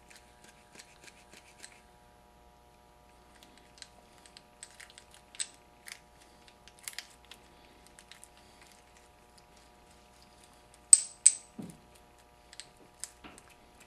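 Light metallic clicks and ticks of a transmission gear shaft handled in gloved hands, its gears and shift slider shifting on the shaft, with two sharper clicks close together about eleven seconds in, over a faint steady hum.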